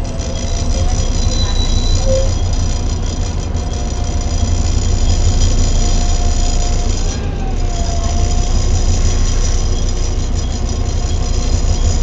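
Volvo B7TL double-decker bus under way, heard on board: a steady low rumble from its six-cylinder engine, with the hoover-like whine of the cooling fan. A whine from the Voith automatic gearbox dips in pitch about three-quarters of the way through and then comes back up.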